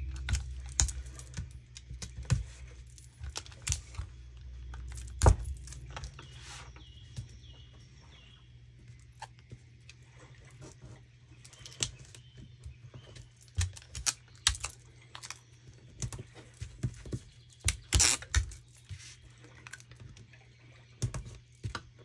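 Irregular light taps and clicks of hands working paper and tape down onto a scrapbook page, with a louder knock about five seconds in and a quick run of louder taps near the end.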